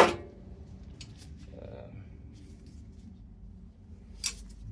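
Metal hand tools clanking sharply as they are put down on a workbench. A few faint clicks follow as a pair of pliers is handled, then another sharp click a little past four seconds.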